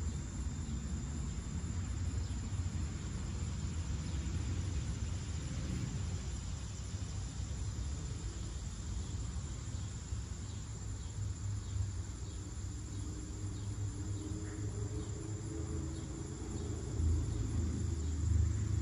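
Cicadas keeping up a steady, high, even buzz, over a low rumble.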